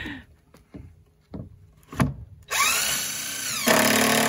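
Power drill driving a long screw through a shed board into the framing: a sharp knock about two seconds in, then the motor whines up in pitch, settles, and runs louder near the end as the screw drives home.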